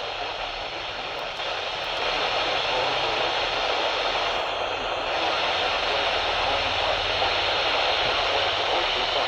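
Radio static: a steady rushing hiss from a receiver on a weak or absent signal, growing louder about two seconds in.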